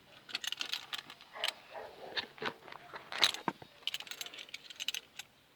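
Small metal parts of a new ball joint kit clinking and rattling as they are handled: a string of short sharp clicks, the sharpest about three seconds in.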